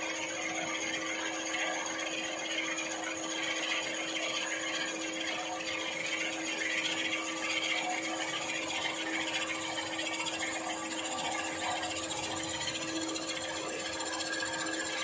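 Machine drill running with a steady motor hum while a bit scrapes and cuts into the metal torch head, drilling the sockets for the torch's tubes.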